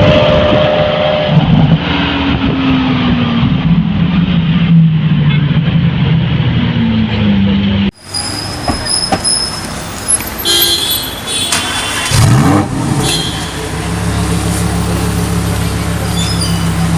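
Car engines revving in street traffic, with horns tooting. The sound changes abruptly about halfway through, one engine revs up sharply shortly after, and a steady low engine drone sets in near the end.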